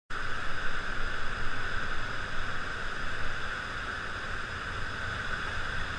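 Whitewater rapids rushing over a rock ledge, a steady churning noise with a low rumble, somewhat louder in the first couple of seconds.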